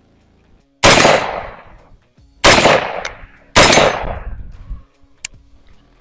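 Three rifle shots from an AR-15 in .223 Wylde with an 18-inch barrel, fired at a steady pace, the second and third about a second apart, each trailing off over about a second. Picked up through a wireless Bluetooth clip-on mic; a light click follows near the end.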